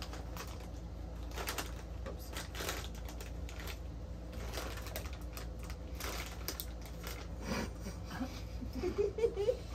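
Chorizo chipotle Fritos corn chips being crunched and chewed: irregular crisp crunches, with a short voiced murmur near the end.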